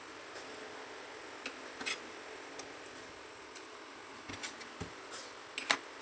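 Scattered light clicks and taps from handling a Vifa Oslo speaker's opened casing and a metal pry tool, with a sharp double click near the end.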